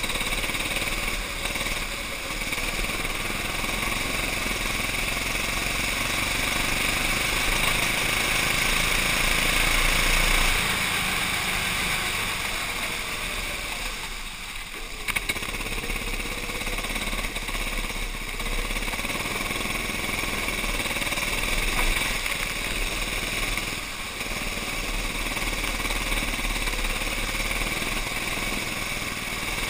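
Racing kart's engine running hard under way, heard from the kart itself over a steady hiss of wind and spray off the wet track. The engine note eases off briefly about halfway through and again a little later as the kart slows for corners.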